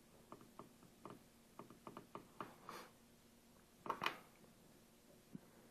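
Faint clicks of buttons being pressed on a Roland XP-series synthesizer's front panel, a dozen or so light taps in quick succession while stepping down through parameters, with a louder brief rustle about four seconds in and one more click near the end.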